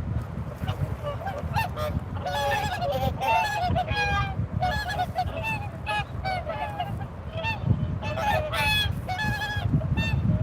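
A flock of swans calling: many short honking calls overlapping one another without a break, some clearly louder and nearer than others.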